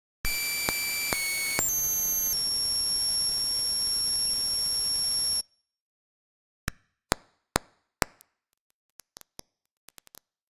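A high electronic test tone with harmonics over a steady hiss, stepping up in pitch three times and broken by a few sharp pops, stops after about five seconds. Then come the pops on their own, separated out by a transient-extraction algorithm: about five sharp clicks, followed by a few fainter ticks.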